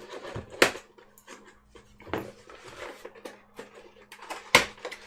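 Taped cardboard card-box packaging being handled and cut open: scraping and rustling with a few sharp clicks or knocks, the loudest near the end.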